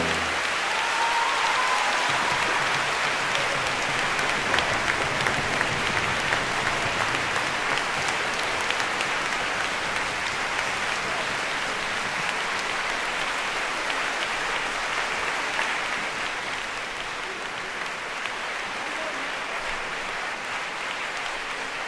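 Audience applauding: steady, even clapping that eases off a little in the last few seconds.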